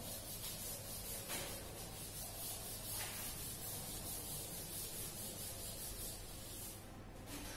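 Chalkboard duster rubbing across a chalkboard in repeated back-and-forth strokes, wiping off chalk writing.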